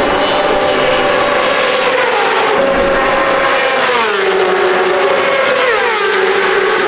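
Racing superbikes at full throttle on the main straight, a high, loud engine note whose pitch drops sharply as bikes pass by, about four seconds in and again near the end.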